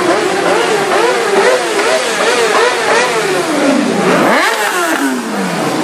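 Several motorcycles ride slowly past in a line, their engines blipping and revving unevenly. About four seconds in, one bike revs sharply up, and its pitch then falls away.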